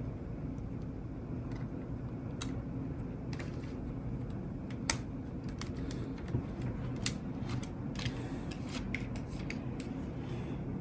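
Scattered small clicks and light rubbing as the shields and parts inside an Alienware M17 R3 laptop are handled and pressed into place, over a steady low hum.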